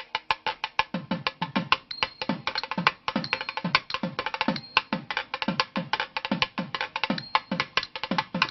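Music of a fast hand-drum rhythm: quick, sharp strokes several times a second. From about a second in, deeper strokes that drop in pitch come in roughly twice a second.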